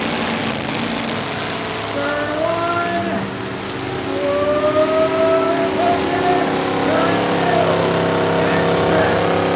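Several pickup-truck engines racing around the track, revving up and down so their pitch rises and falls over one another, about halfway through.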